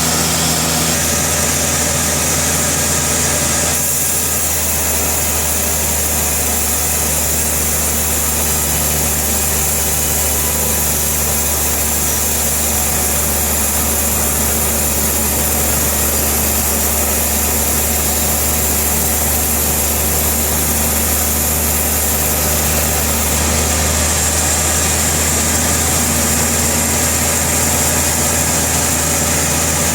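Sawmill machinery running steadily: a continuous engine hum with a hiss over it. The hiss and the mid tones change about four seconds in, and again near the end.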